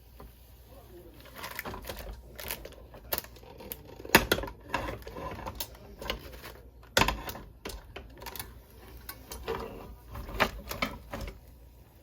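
Irregular clicks and clacks of camp cookware being handled, with two sharper knocks about four and seven seconds in.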